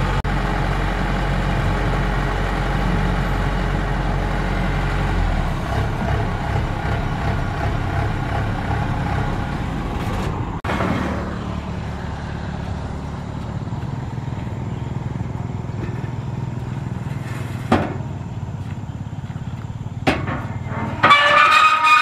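Kubota DC-95 GM combine harvester's engine running steadily, its note shifting about ten seconds in. Near the end, a higher, wavering pitched sound cuts in over it.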